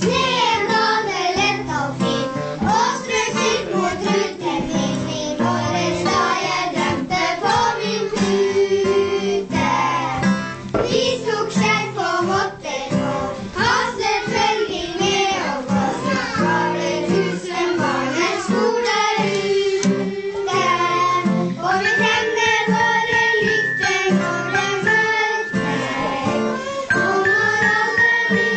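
Children singing a song to acoustic guitar accompaniment, with high held tones joining in about two-thirds of the way through.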